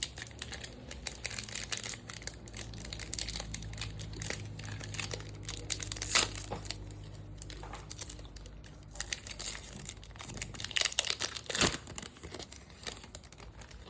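A basketball trading card pack's wrapper crinkling and tearing as it is ripped open by hand, in an irregular run of crackles with a few sharper ones.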